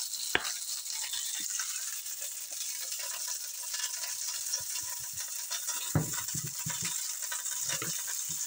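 Chicken frying in a cast-iron skillet, a steady sizzling hiss. A sharp click comes shortly after the start and a few soft knocks near the end as bottles and a bowl are handled on the stovetop.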